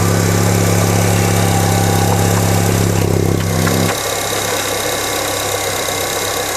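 2007 Acura RDX's 2.3-litre turbocharged four-cylinder idling with the oil filler cap off, just after an oil change. A strong low hum drops away about four seconds in, leaving a quieter, even idle.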